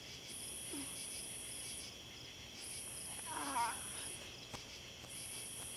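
Night insect chorus: a steady high-pitched buzz of crickets, with a higher shrill trill that comes on and cuts off in phrases about every two seconds. About three and a half seconds in there is a short wavering voice-like sound, and a faint click about a second later.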